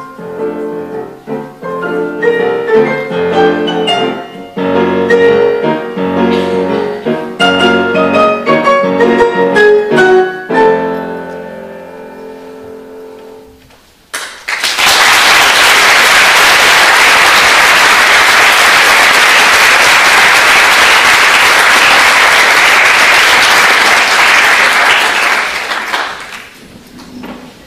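A piano piece ends on a held chord that slowly dies away. About fourteen seconds in, an audience breaks into applause that lasts about twelve seconds and then fades out.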